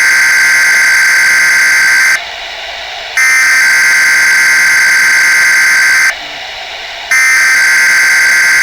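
Weather radio sounding the digital SAME alert header: three harsh buzzing data bursts of about three seconds each, about a second apart, signalling the start of an emergency alert broadcast, here a required weekly test.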